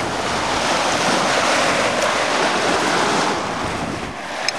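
Small waves breaking and washing up the sand at the water's edge, with wind buffeting the microphone. A short click near the end.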